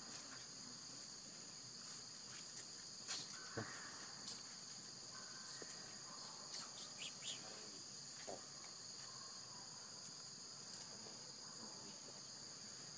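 Steady high-pitched insect chorus, two even shrill tones that go on without a break, with a few faint short clicks in between.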